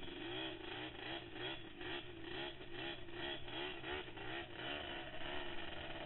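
ATV engine running under way on a sandy trail, its pitch rising and falling about twice a second as the throttle and load change.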